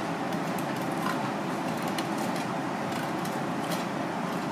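Steady rushing background noise at an even level, with a few faint light clicks.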